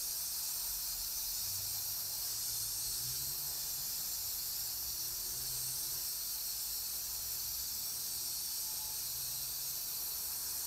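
Compressed-air hose hissing steadily as it blows metal shavings off the workpiece in a CNC milling machine, with a faint low hum underneath.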